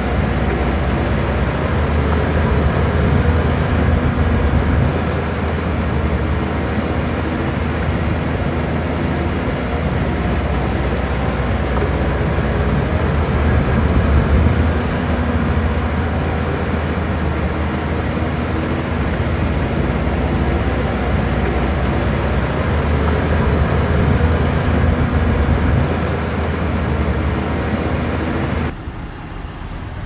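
Heavy diesel earthmoving machinery running steadily with a deep rumble, the level swelling a little now and then. Near the end it cuts off abruptly to a quieter background.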